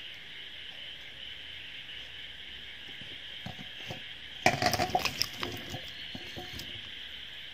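Pieces of boiled ginger tipped from one stainless steel bowl into another holding water: a clatter of knocks against the metal lasting about two seconds, starting about four and a half seconds in, after a few light clicks. A steady high-pitched drone runs in the background.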